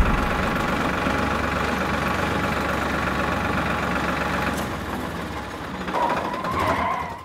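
Farmtrac tractor's diesel engine running steadily at low speed as the tractor pulls up and stops, with a brief wavering whine near the end.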